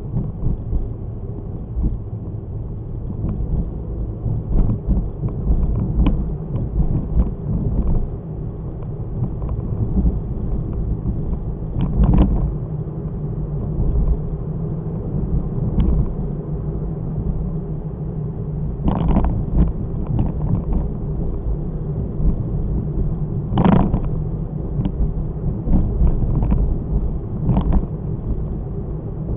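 Car on the move recorded by a dashcam: a steady low rumble of engine and road noise, with a few short knocks and thumps, the strongest about a third of the way in, about two-thirds in and near the end.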